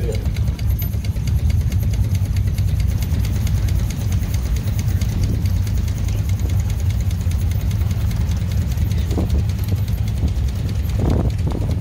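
Small traction engine running steadily as it drives past, a fast even ticking over a constant low rumble. A faint voice comes in briefly near the end.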